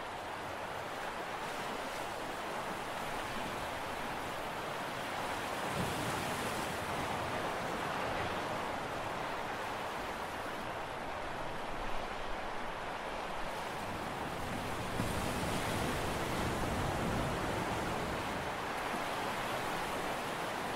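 Steady outdoor harbour ambience: an even wash of wind and sea noise, with a few faint knocks about twelve seconds in.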